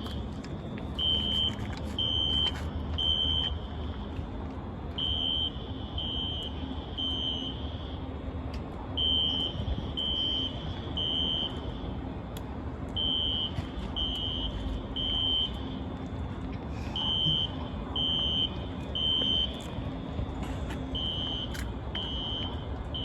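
Building fire alarm sounding the temporal-three evacuation signal: a high-pitched beep three times, a pause, then again, repeating about every four seconds.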